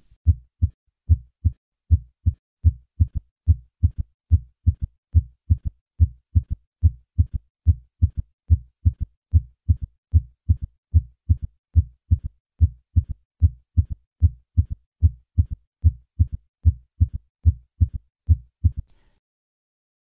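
Heart sounds: a steady, evenly repeating run of short low thuds, each lub-dub followed in early diastole by a third heart sound (S3). The beats stop about a second before the end. S3 is a normal variant in children and young adults, but in people over 40 it usually points to decreased left ventricular function.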